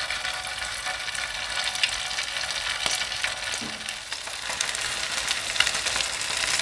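Cubes of bánh chưng (sticky rice cake) frying in hot oil in a frying pan: a steady sizzle with many small crackles as more cubes are lowered in one by one with chopsticks.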